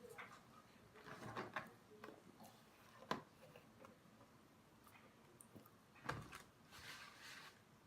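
Near silence: room tone with a few faint clicks and rustles, the sharpest click about three seconds in.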